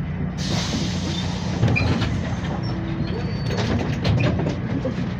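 MAZ-105 city bus standing at a stop with its diesel engine idling, a steady low hum. About half a second in, a sudden hiss of compressed air from the bus's pneumatic system starts and carries on, with scattered knocks and clatter over it.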